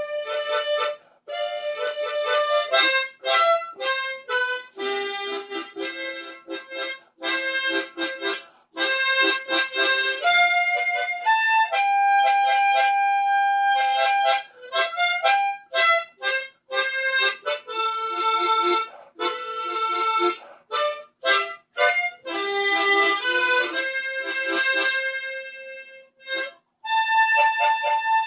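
Solo harmonica playing a song melody: a string of separate notes with short breaths between phrases, some held for a second or more, with lower chord notes under a few of them.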